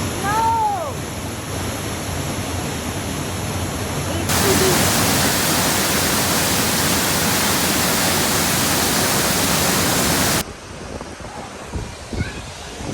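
Rushing water of a waterfall, an even hiss. It cuts in much louder about four seconds in and cuts off sharply a few seconds before the end, leaving a quieter rush.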